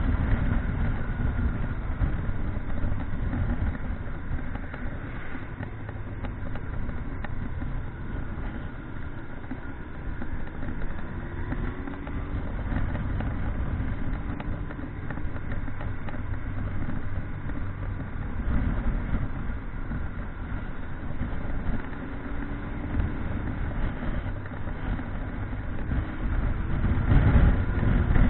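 Motorcycle on the move: its engine running with slow rises and falls in pitch under a steady rushing noise, with a louder surge near the end.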